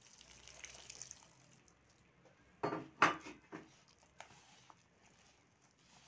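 Warm water poured into flour in a plastic bowl, then hands mixing it into dough, with a few sharp knocks against the bowl about three seconds in.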